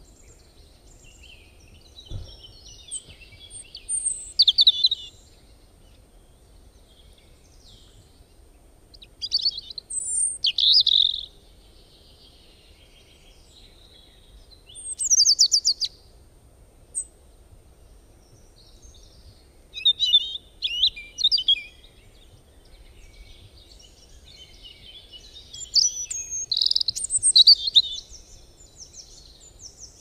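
Lovebird chirping in about five short bouts of rapid, shrill chirps, each lasting a second or two, with quiet gaps in between.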